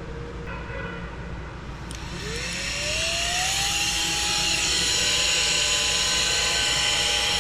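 Small cordless vacuum cleaner switched on about two seconds in: its motor whine rises in pitch as it spins up, then runs at a steady pitch with a rushing hiss of air.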